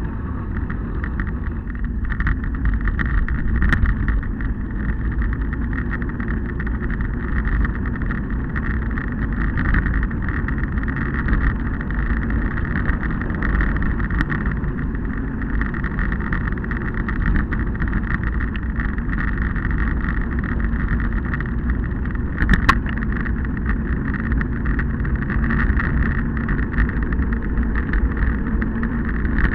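Steady wind and road rush on the microphone of a camera mounted on a moving vehicle, with one sharp click about three quarters of the way through.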